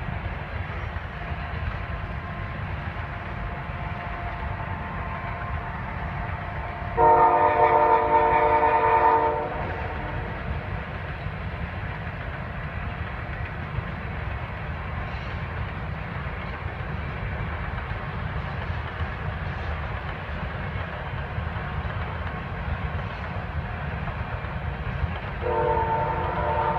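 CSX ES44AH diesel locomotive's air horn sounding one blast of about two and a half seconds about seven seconds in, and a second blast starting near the end, over the steady low rumble of a freight train running by.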